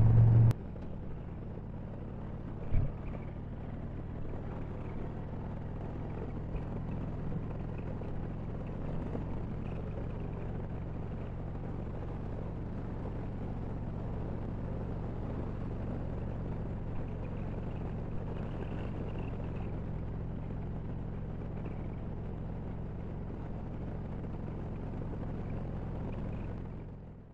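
Harley-Davidson Road Glide's V-twin engine running steadily at cruising speed, with road and wind noise. There is a single brief knock about three seconds in, and the sound fades out near the end.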